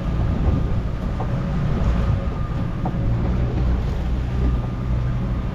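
A boat's engine running steadily with a low rumble, with wind on the microphone.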